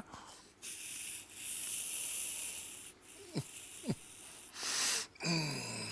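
Aerosol can of whipped cream sprayed straight into the mouth: one long hiss, a pause, then a second short hiss. A man's low voice follows near the end.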